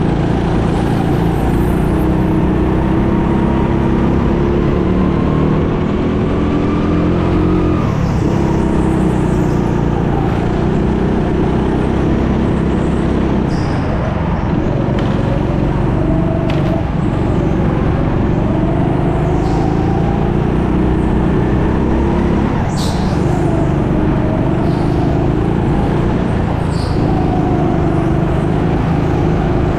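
Go-kart engine running continuously under way, its pitch slowly rising and falling several times as the kart speeds up and slows.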